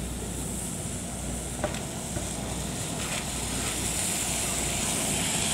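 Steady hiss of light rain on wet ground, with a car's tyres swishing past on the wet road from about four seconds in, growing a little louder. A single small click about a second and a half in.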